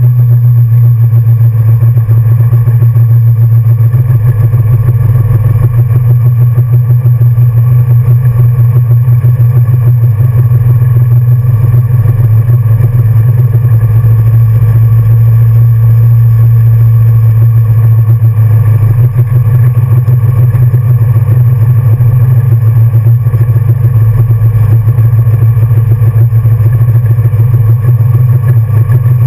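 1966 Ford Mustang's 347 stroker small-block V8 running steadily at low revs while the car rolls slowly, a loud, even low drone heard from inside the cabin.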